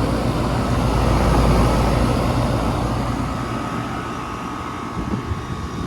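2001 Miller (Nordyne) 2-ton air conditioner condensing unit running: a steady hum from its reciprocating compressor under the rushing air of the condenser fan. It grows somewhat quieter over the last few seconds.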